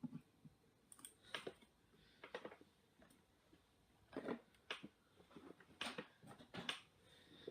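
Faint, irregular clicks and light taps from a small screwdriver and tiny screws being handled on an opened iPad 2, about a dozen in all.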